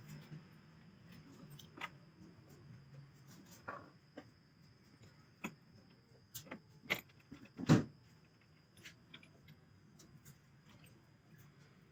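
Scattered light clicks and taps of objects being handled, with one louder knock a little before eight seconds in, over a faint steady hum.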